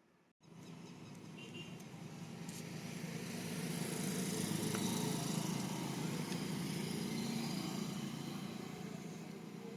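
A motor vehicle engine running, cutting in suddenly, growing louder to a peak around the middle and then slowly fading.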